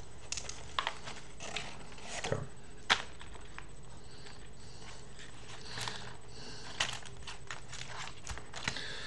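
Scattered small clicks, smacks and rustles of a smoked mackerel being picked apart by hand and eaten, the sharpest click about three seconds in.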